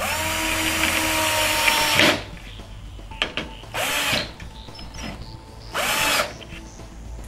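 Cordless drill driving set screws into the metal brackets of a flat-pack cabinet. One run of about two seconds, then two short bursts, the motor whine rising and falling with each trigger pull.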